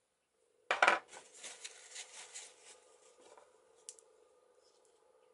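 Metal parts of a sailboat cabin lock clicking and rattling as the lever hub is turned and worked out of the lock case by hand. A sharp metallic click comes about a second in, then a run of lighter clicks and scrapes, and one more click near the end.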